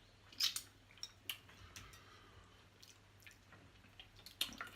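Close-miked sounds of eating crab: a few sharp, wet clicks and smacks of chewing and picking at the crab, loudest about half a second in and again near the end.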